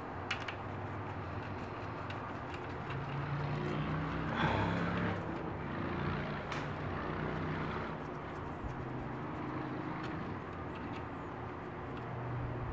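A steady low engine-like hum swelling and easing through the middle, with a few light metallic clicks as the main bearing cap bolts are unscrewed by hand.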